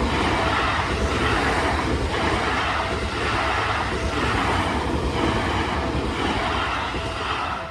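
Electric commuter train passing close by at a level crossing: a loud, steady rush of wheel and running noise that swells about once a second, then drops off sharply near the end as the train clears.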